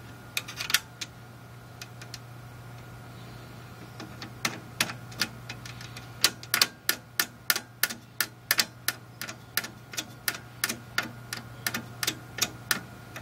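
Sharp, light clicks of a small black plastic part being worked by hand onto a metal rod of a Pitney Bowes DA75S feed elevator. A short cluster comes about half a second in, then a steady run of about three clicks a second from about four seconds on.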